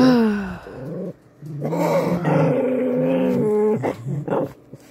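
Small dogs growling at one another, with a long low growl through the middle: warning growls between dogs squabbling over a warm spot.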